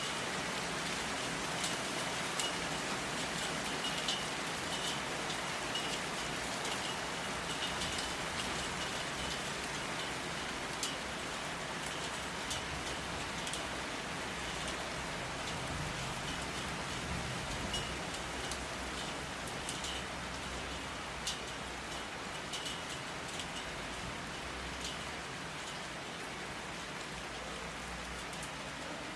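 Steady rain, with many individual drops ticking and pattering on a hard surface over a continuous hiss of rainfall.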